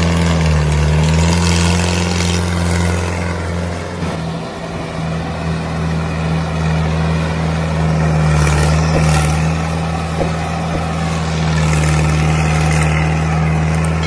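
A steady low engine drone, like a tractor or truck engine running, dipping and thinning briefly about four seconds in before settling again.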